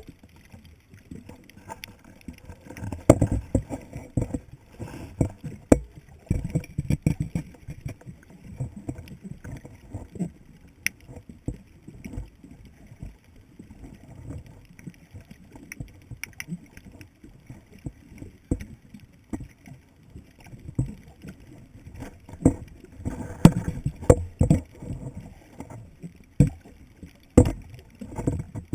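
Muffled water movement and knocks picked up by a submerged camera: irregular low thumps and gurgling with a few sharp clicks, busiest about three to seven seconds in and again near the end.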